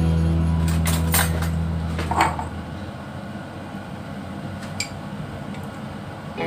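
Background music fades out over the first two seconds. A few light clicks and knocks follow as a jar and a metal spoon are handled over a nonstick frying pan, the loudest about two seconds in.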